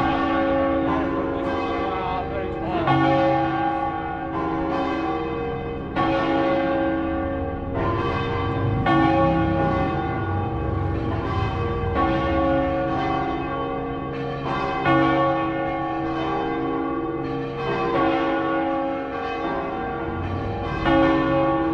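Church bells of Saluzzo cathedral's tower ringing together in a festive peal. Strokes come every second or two, overlapping, and each leaves a long ringing hum.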